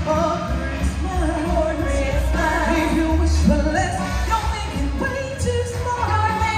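A woman singing into a microphone, amplified through a PA over backing music with a strong, steady bass line.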